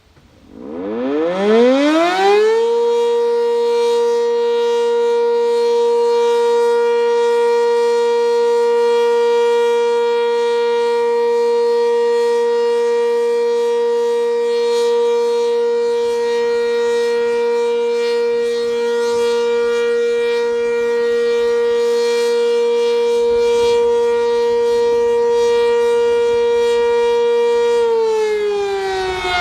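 A Sentry 10V electromechanical outdoor warning siren spins up from silence, rising in pitch to a steady alert tone within about two seconds. It holds that one steady pitch, sounded as a short test, and near the end begins to wind down, falling in pitch.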